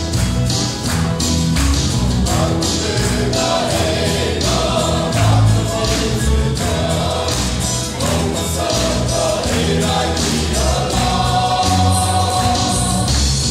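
Mixed group of men and women singing a gospel hymn in unison, one man leading on a microphone, over strummed guitar and drums keeping a steady beat. The voices come in about two seconds in after an instrumental lead-in.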